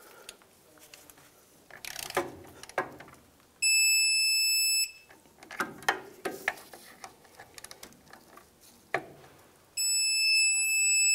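Electronic torque wrench tightening the brake caliper guide pins: a few ratchet clicks, then a steady high-pitched beep lasting about a second as the pin reaches its set torque, and the same again near the end with a longer beep.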